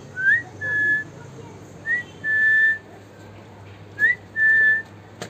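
A clear two-part whistle, a short rising note then a longer steady one, repeated three times about two seconds apart.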